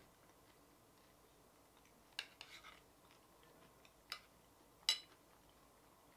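A metal spoon clinking against a ceramic bowl of oats: after a quiet start, about four short, sharp clinks between about two and five seconds in, the last the loudest.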